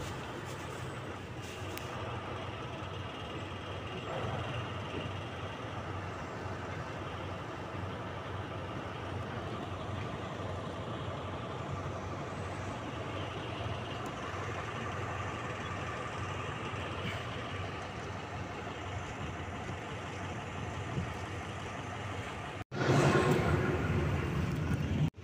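Diesel locomotive engine running steadily, a low rumble with a held hum. Near the end, after a sudden break, a louder, noisier rumble inside the passenger carriage.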